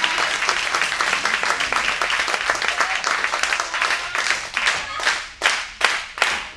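Wrestling crowd clapping: scattered applause that about five seconds in becomes loud clapping in unison, roughly two to three claps a second.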